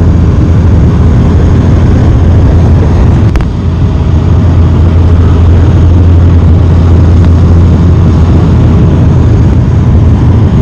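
Twin-turboprop airliner's engines and propellers heard from inside the cabin: a loud, steady low drone with the landing gear extended. There is a brief click and dip in level about three and a half seconds in.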